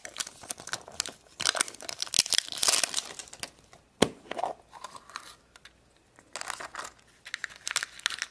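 Plastic wrapping crinkling and tearing as it is pulled off a plastic surprise egg. About four seconds in, a single sharp click as the plastic egg is snapped open. After a short pause, paper and wrapper crinkle again as the contents are pulled out.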